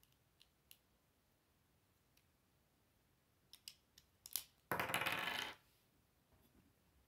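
Plastic Lego pieces clicking as they are fitted onto a small model: a few light clicks, then a quicker run of clicks and, about five seconds in, a short dense clatter of plastic parts that is the loudest sound.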